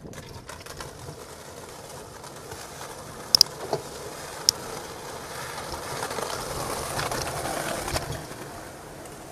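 Bicycle riding noise from a handlebar-mounted camera: a steady rush of tyre and wind noise. A few sharp clicks come about three and a half and four and a half seconds in. The rushing swells louder from about six to eight seconds.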